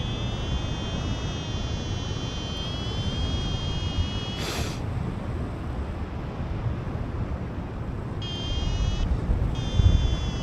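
Paraglider's variometer sounding a high electronic tone whose pitch wavers slightly, cutting out about four and a half seconds in and coming back in two stretches near the end, over wind buffeting the microphone in flight. A short rush of noise sounds just as the tone cuts out.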